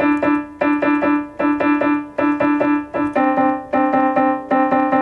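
Piano playing two lines of a string piece, the second violin and viola parts, in quick repeated short notes. About three seconds in, the notes shift lower as the lines step down together.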